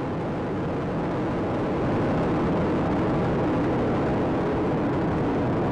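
Space Shuttle Atlantis's two solid rocket boosters and three main engines during ascent: a steady, deep roar that grows a little louder about two seconds in.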